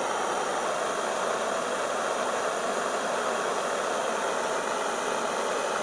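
Portable gas canister stove burning with the gas turned up, a steady hiss under a pot of water being brought to the boil.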